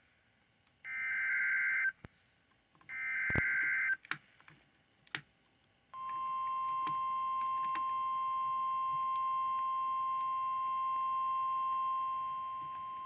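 Emergency Alert System warning signal: the last two of three short buzzing data bursts of the SAME header, then, after a gap of about two seconds with a few clicks, the continuous single-pitch 1050 Hz attention tone of NOAA Weather Radio.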